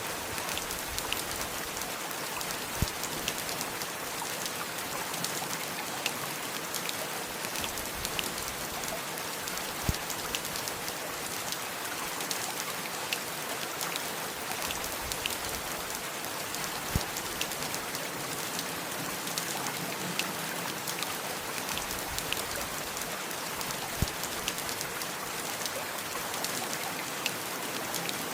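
Steady heavy rain, a dense even patter of drops, with an occasional louder single drip standing out every several seconds.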